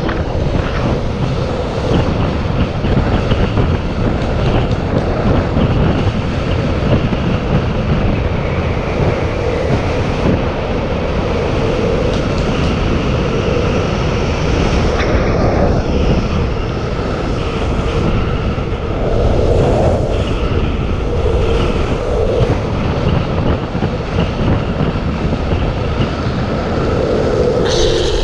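Steady loud rushing roar of a fast downhill longboard run: wind buffeting the camera's microphone over the rumble of longboard wheels rolling on asphalt.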